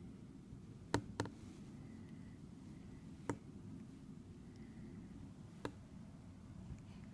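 Newborn baby hiccuping: four short, sharp hics, two in quick succession about a second in, then one at about three seconds and another a little over two seconds later, over faint room hum.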